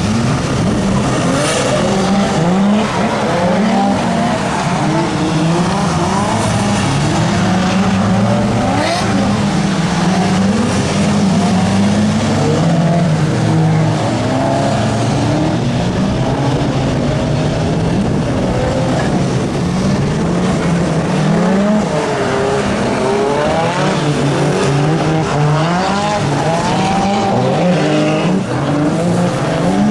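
Several cars running at the same time on a circuit, their engines revving up and down repeatedly, with tyre squeal.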